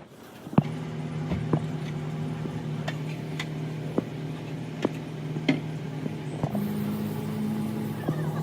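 A motor running steadily with a low hum, which starts about half a second in. Sharp metallic clicks and taps come every second or so, and a second, slightly higher hum joins for a couple of seconds near the end.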